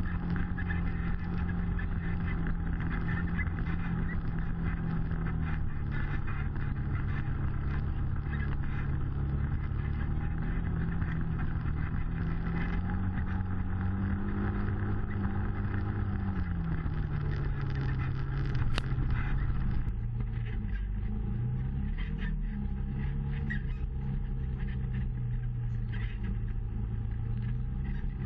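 Side-by-side UTV engine running as it drives a rough trail, heard from inside the cab. Its note rises and falls with the throttle and settles lower after about two-thirds of the way through, with one sharp click just before.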